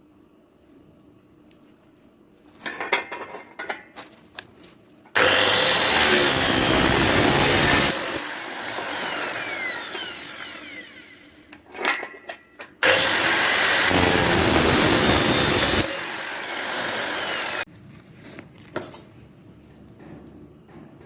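Electric angle grinder fitted with a chainsaw bar and chain, revved in two loud bursts of about three seconds each as it cuts, each followed by a few seconds of quieter running. Handling knocks and clicks come before the first burst and between the two.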